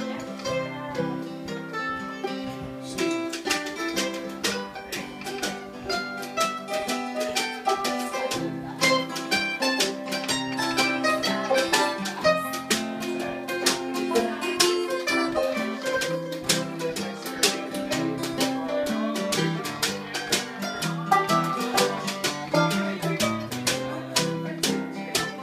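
Acoustic string band picking an instrumental passage together: mandolin, acoustic guitar and banjo. The picking grows busier and brighter about three seconds in.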